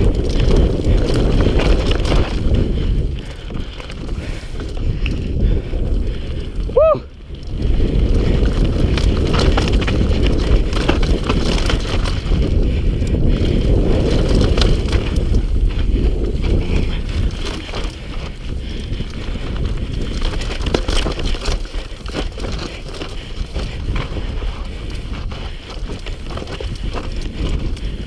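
Mountain bike riding fast down a rocky dirt singletrack: wind buffeting the camera microphone over the rumble and rattle of tyres on gravel and the bike jolting over stones, with a short squeak about seven seconds in.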